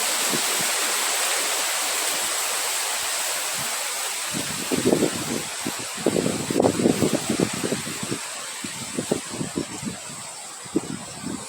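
Wind blowing with a steady hiss and irregular low gusts buffeting the microphone through the middle stretch, the whole slowly dying down.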